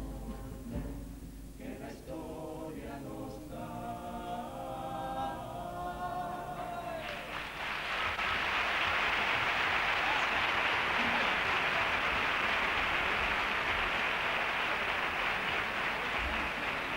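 A carnival comparsa choir sings the closing chord of a song, which ends with a falling note about seven seconds in. The theatre audience then applauds, louder than the singing, and keeps applauding.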